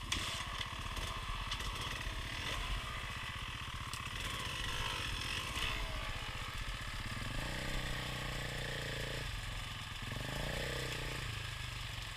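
Off-road motorcycle engine running, its pitch rising and falling several times in the second half as the throttle is opened and closed.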